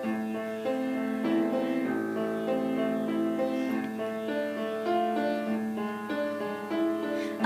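Piano playing a short instrumental interlude of a slow hymn, notes struck one after another and left to ring, between sung verses.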